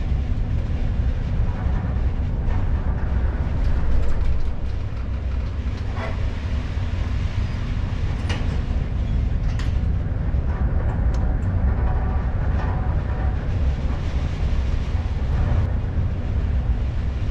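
Steady low rumble of a cruise ship under way in a heavy sea, with a few faint clicks and creaks scattered through it.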